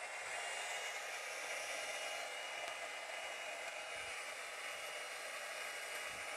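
Electric hair dryer running steadily, blowing air across wet acrylic paint, with a faint motor whine under the rush of air.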